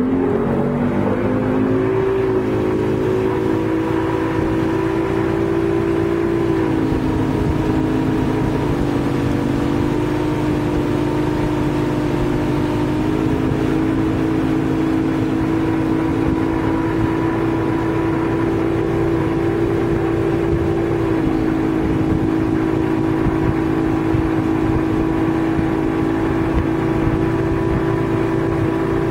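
Towboat engine accelerating hard, its pitch rising over the first couple of seconds, then running steadily at towing speed with a few small changes of pitch, over a steady rush of water.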